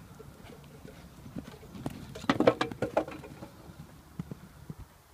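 Hoofbeats of a ridden horse moving around a sand arena, with a louder flurry of sounds between about two and three seconds in.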